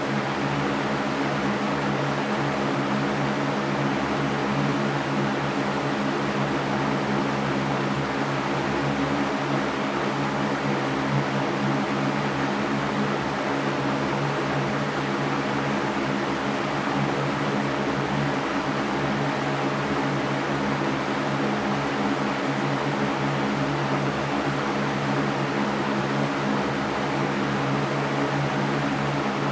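Electric fan running steadily: an even whooshing hiss of moving air, with a low steady motor hum beneath.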